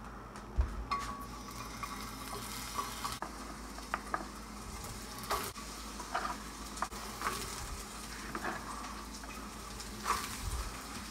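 Sliced squash and asparagus sizzling as they hit hot olive oil in a wok-style non-stick pan. The sizzle picks up about a second in, with scattered sharp knocks and scrapes as more pieces are pushed in and stirred.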